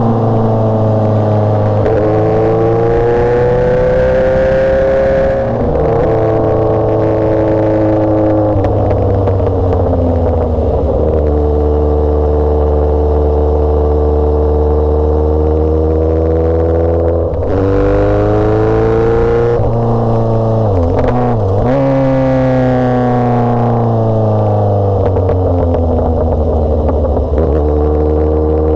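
Motorcycle engine pulling hard under way, its pitch climbing as it accelerates and falling back sharply at each gear change, several times over.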